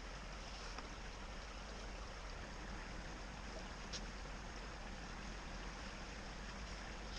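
Creek water running steadily, with one faint click about four seconds in.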